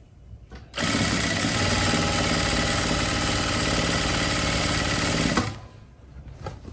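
Electric sewing machine running at a steady speed, stitching a trouser seam; it starts about a second in and stops abruptly after about five seconds.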